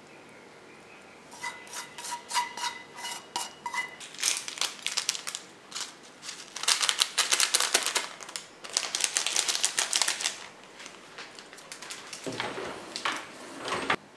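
Metal chopsticks clicking and ringing against a pan and plate as noodles are served. Then a small plastic packet of seaweed flakes crinkles as it is torn open and shaken over the food, loudest in the middle and again briefly near the end.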